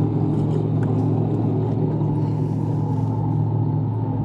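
A small boat's motor running steadily, an even hum with no change in pitch.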